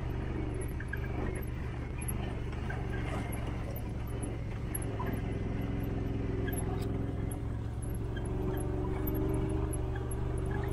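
Engine of an off-road vehicle running steadily while it drives along.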